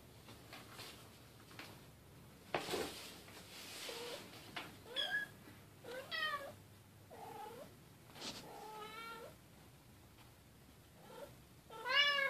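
Bengal cats meowing while they play-wrestle: a string of about six short, high-pitched meows, the loudest one near the end. There are also two brief noisy rushes of sound, about three seconds in and about eight seconds in.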